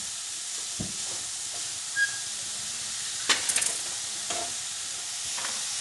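Chopped cabbage, onion, carrot and garlic sizzling in a kadai as they are stirred with a wooden spatula: a steady frying hiss with a few short scrapes of the spatula against the pan. The vegetables are being dry-roasted to cook off the cabbage's moisture.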